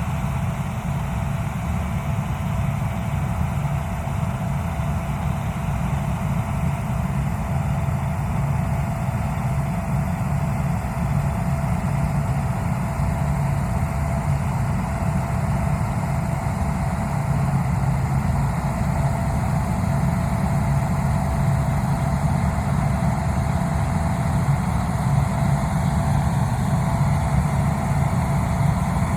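Gleaner combine running steadily while harvesting wheat: a low, even engine drone with a thin steady whine above it.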